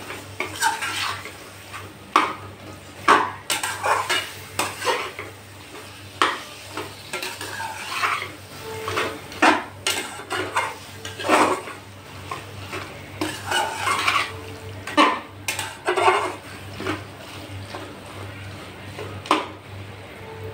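Metal spatula scraping and knocking against a metal pan as a thick, sticky jujube pickle is stirred, in irregular strokes with sharper clanks now and then.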